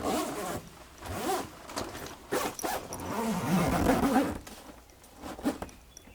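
A zipper pulled in several quick rasping strokes, the longest lasting about a second near the middle.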